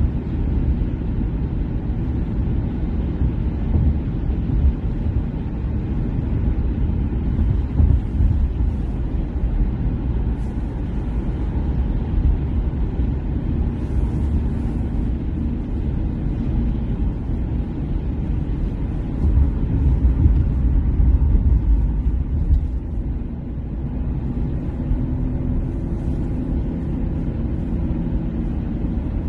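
Road noise inside a moving car's cabin: a steady low rumble of tyres and engine at highway speed, swelling a little louder a couple of times.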